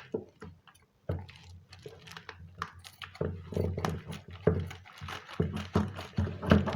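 Bubble wrap being handled and wrapped, irregular crinkling and rustling with small crackles, starting about a second in.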